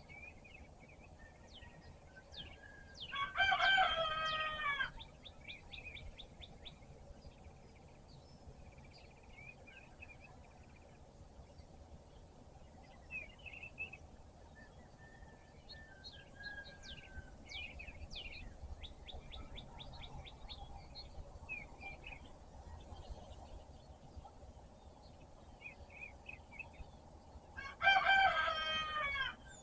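A rooster crows twice, each crow about two seconds long, a little after the start and again near the end. Small wild birds chirp and sing throughout.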